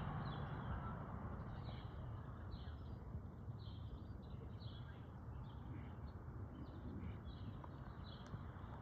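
Small birds chirping faintly in a steady string of short chirps, about one or two a second, over a low background rumble.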